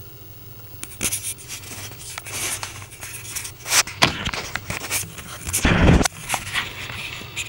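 Irregular scratches, clicks and knocks from handling in a bathtub, starting about a second in, with one heavy bump near six seconds in.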